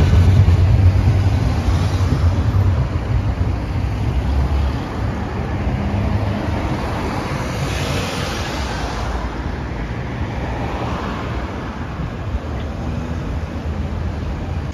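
Articulated low-floor tram passing close by with a low rumble and a steady motor hum, fading as it moves off. About eight seconds in, a car passes close with a rush of tyre noise.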